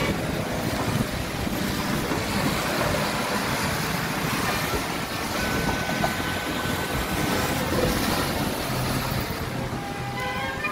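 City street traffic noise on wet roads: a steady, dense hiss of tyres and engines with no clear single event.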